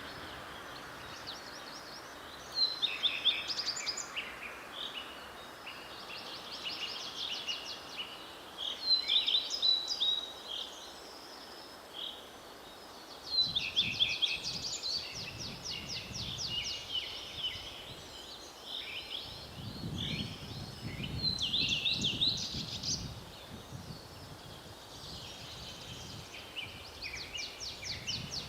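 Several forest songbirds singing at once, overlapping fast trills and short chirps. A low rumble rises and falls twice through the middle.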